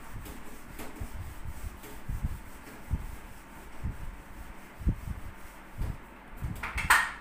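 Eraser rubbing across a whiteboard, wiping writing off in repeated strokes, with soft low knocks and one brief, louder swish near the end.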